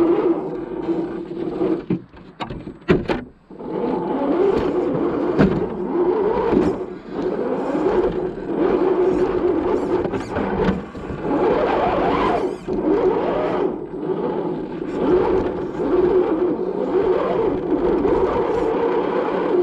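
Axial SCX10 II RC crawler's electric motor and gearbox whining, rising and falling with the throttle, with scraping as the truck crawls over the ground. The whine drops out briefly about two seconds in, where a few sharp clicks are heard.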